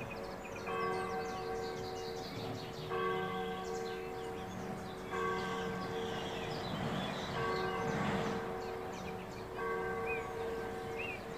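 A church bell tolling slowly, one stroke about every two seconds, each stroke ringing on into the next. Birds chirp faintly in the background.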